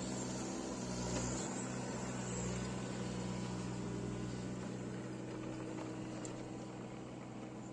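Hitachi Zaxis 19U mini excavator's diesel engine running steadily as the hydraulics lift and swing a loaded bucket of sand, the level easing slightly near the end.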